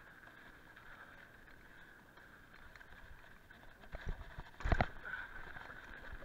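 Mountain bike rolling down a rough dirt trail: a steady whir from the bike, with heavy jolts and knocks over bumps a little past halfway and again at the very end.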